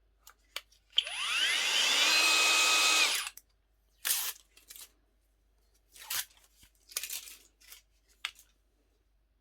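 Hoto 12 V brushless cordless drill run free with no bit load: about a second in it whines up to speed, holds a steady pitch for about two seconds, then stops. A few short clicks and knocks of handling follow.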